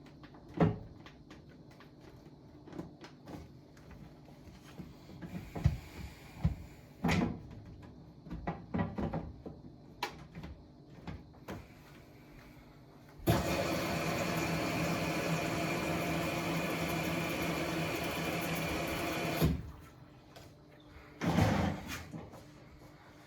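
Scattered knocks and clicks of things being handled, then a motor runs steadily for about six seconds, switching on and off abruptly, with a short burst of noise near the end.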